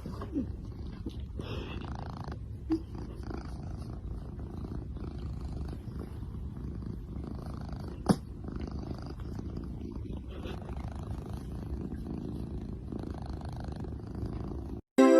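Domestic cat purring close to the microphone: a steady low rumble that swells and eases in a breathing rhythm, with one sharp click about eight seconds in.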